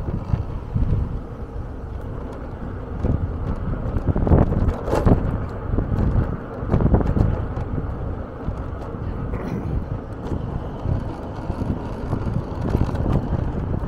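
Wind buffeting the microphone in irregular gusts over the low rumble of the vehicle driving along the street.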